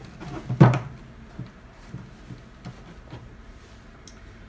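A 1½-inch PVC pipe being pushed into its fitting: one sharp hard knock about half a second in, then a few faint taps.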